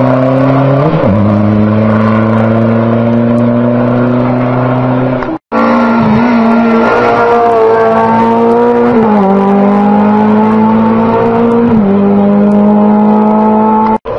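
Race car engine running hard at high revs on a hillclimb, its pitch dropping in steps three times as it changes up and climbing slightly between shifts. The sound cuts out for an instant midway.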